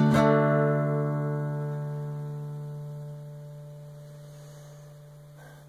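Acoustic guitar chord strummed once just after the start, then left to ring and slowly fade over about five seconds: the closing chord of the song.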